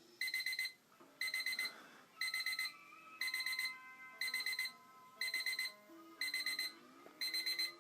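Digital alarm clock beeping: bursts of four or five quick high-pitched beeps, repeating about once a second.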